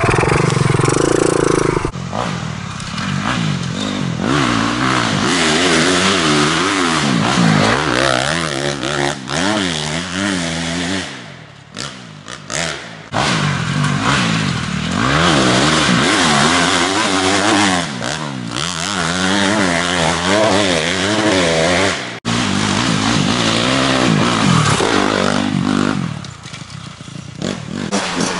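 Honda CRF250R dirt bike's single-cylinder four-stroke engine revving hard up and down as it rides along a forest trail, its pitch rising and falling again and again through the throttle and gear changes. The sound dips out briefly a few times, most clearly about twelve seconds in.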